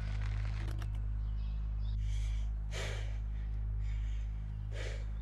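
A man breathing hard: four audible breaths in the second half, over a steady low hum, with a couple of faint clicks about a second in.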